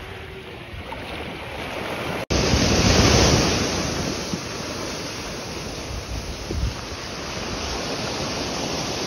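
Waves washing and splashing over rocks at the shoreline, with wind buffeting the microphone. An abrupt cut about two seconds in brings a louder rush of surf that peaks just after and slowly eases.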